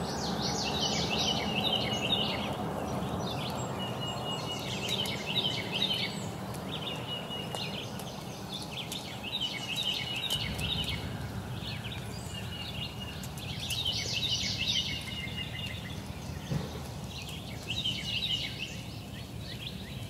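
A songbird singing the same short song over and over, roughly every three to four seconds: a few repeated even notes followed by a quick jumble of higher notes. A steady low outdoor rumble runs underneath.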